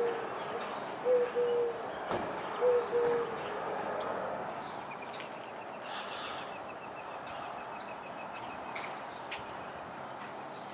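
Distant air ambulance helicopter as a steady rotor-and-engine wash, fading slowly as it flies off. Over it, a bird gives low two-note coos, three times in the first three seconds.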